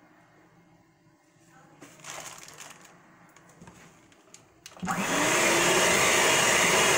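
Electric hand mixer switched on near the end, its motor spinning up and then running steadily and loudly as the beaters whisk cake batter. Before that, faint handling clatter.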